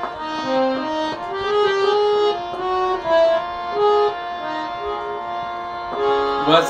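Harmonium playing a short instrumental interlude in a song, a melody moving from note to note without singing.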